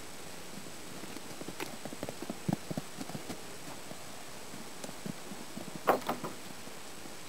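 Hooves of an Appaloosa colt and a mare galloping and trotting on grass: a run of irregular dull thuds, with a louder cluster of thuds about six seconds in.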